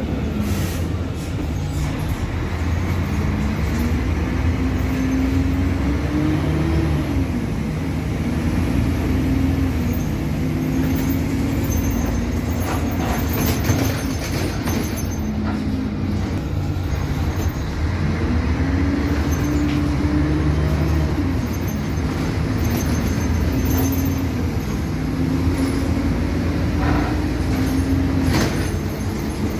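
Mercedes-Benz O-500MA BlueTec 5 bus's diesel engine running under way, its pitch climbing and then dropping several times as the bus accelerates and changes gear. A few short knocks and rattles are heard over it.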